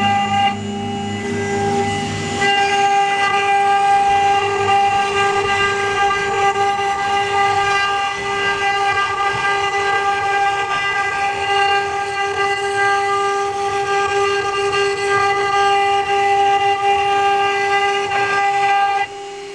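AccTek AKM6090 CNC router running with a steady, loud whine made of several held tones. A lower hum under it stops about two seconds in, and the sound drops away sharply near the end.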